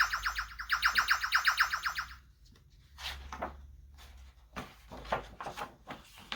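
Electronic sound effect from a children's button sound book's small speaker: a fast run of pitched pulses, about nine a second, that stops about two seconds in. A few shorter, quieter sounds follow.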